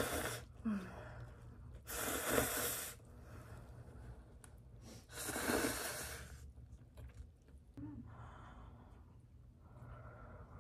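Three breathy rushes of air, like breath blown close to the microphone, each about a second long and about three seconds apart, over a faint low room hum.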